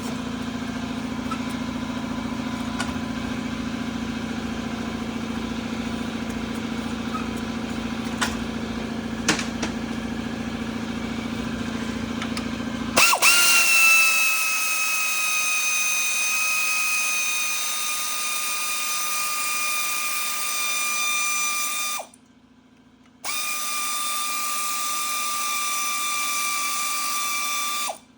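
A steady mechanical hum for about the first half. Then a power tool whines in two steady runs, about nine seconds and then five, with a short break between, spinning out the shock bolts.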